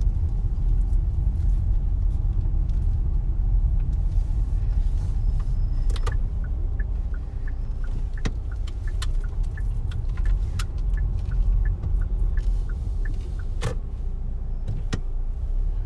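Car driving, heard from inside the cabin: a steady low rumble of engine and road, with a run of light clicks and ticks in the middle and a few sharper knocks near the end.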